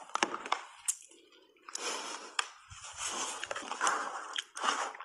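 Close-up crunching of a mouthful of shaved ice coated in matcha powder being chewed, with sharp crackles and a short lull about a second in.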